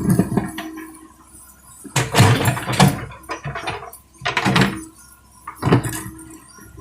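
Excavator working with its engine running steadily, while loads of soil and sand land in a dump truck's bed in repeated loud, rushing bursts about every second or two.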